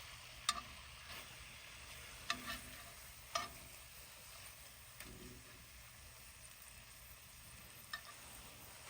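Deer backstrap medallions frying in butter, a faint steady sizzle, with a metal utensil clinking against the pan four times.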